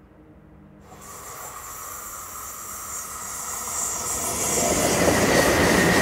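Two coupled red SBB locomotives running toward the listener on a curved line, their wheel and rail noise coming in about a second in and growing steadily louder as they near, with a thin high squeal from the wheels rising near the end.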